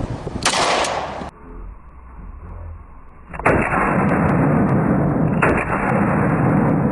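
Springfield XD-S .45 ACP pistol firing: a shot about half a second in, then two more about three and a half and five and a half seconds in, with a loud, steady rushing noise running on after the later shots.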